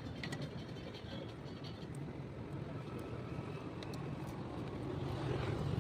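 Street traffic noise, with a vehicle's engine hum growing louder near the end as it approaches, and a few faint clicks.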